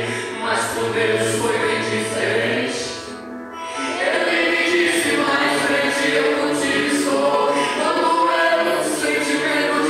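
A young man singing a gospel song into a handheld microphone, held sung notes over a sustained low accompaniment, with a brief lull about three seconds in.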